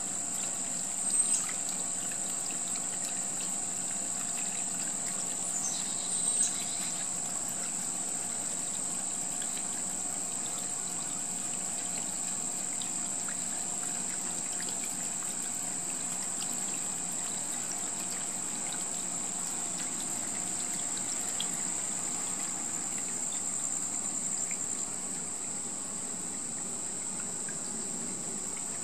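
Water trickling and splashing over the river rocks of a small homemade rock fountain, with a steady high insect trill behind it. Two brief high chirps stand out, about a second in and again around six seconds in.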